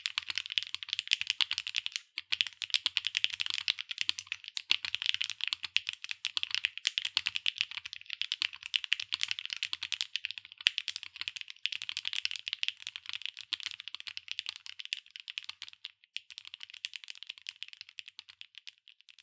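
Continuous fast typing on an SAAG65 mechanical keyboard with HMX Hibiscus linear switches, an aluminium plate, no foam and PBT double-shot keycaps: a dense run of bright clacking keystrokes with a few brief pauses, tapering off near the end.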